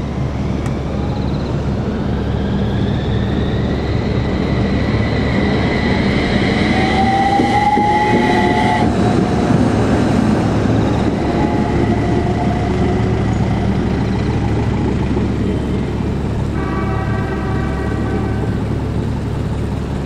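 Utsunomiya LRT light-rail tram passing through the level crossing, its electric drive giving a gently rising whine that cuts off abruptly about halfway through, over a steady low rumble. A brief horn-like tone sounds near the end.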